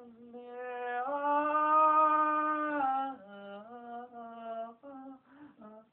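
A woman's voice singing unaccompanied, holding long notes that step up and down in pitch; the longest and loudest note is held for about two seconds, starting about a second in.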